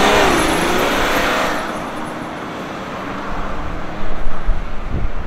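Ineos Grenadier driving past: tyre and engine noise swells at the start and fades away over about two seconds. Lower, uneven rumbling with a few heavy low thumps follows near the end.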